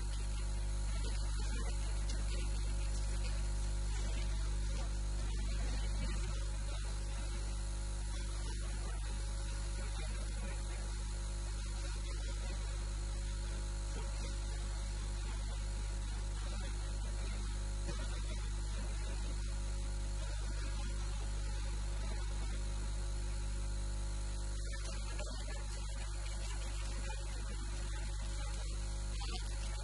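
Steady electrical mains hum and buzz with a constant hiss, unchanging throughout.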